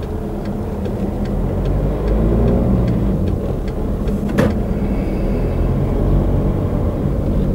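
Van's diesel engine running while driving, heard from inside the cabin: a steady low drone that grows a little louder after about two seconds. One sharp knock comes about four and a half seconds in.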